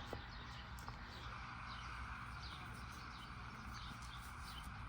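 A bird calling in short, repeated downward chirps, about two a second, over a steady hiss that comes in about a second in.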